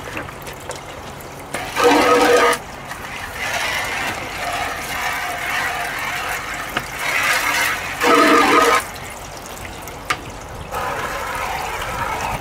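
Water spraying from a hand-held hose nozzle into a tipped plastic bucket and a funnel, rinsing out the last of the ore, in several spells. Two louder bursts with a steady ringing tone come about two seconds in and about eight seconds in.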